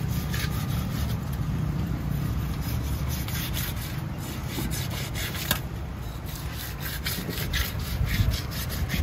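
A knife blade scraping the scales off a large rohu fish in repeated rasping strokes, over a steady low background rumble.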